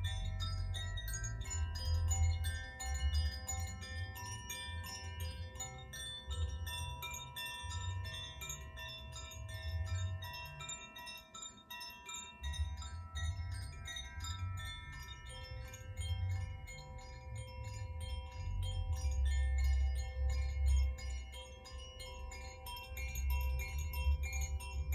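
A cluster of Koshi and Zaphir chimes, whose bamboo tubes hold tuned metal rods struck by an inner clapper, swaying on stands and tinkling densely, many ringing tones overlapping into a shimmering wash. A low rumble runs underneath and dips briefly near the middle.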